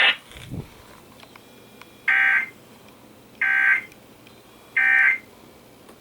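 Emergency Alert System end-of-message code on a NOAA Weather Radio broadcast: three short, harsh digital data bursts about 1.3 seconds apart, signalling the end of the tornado watch alert.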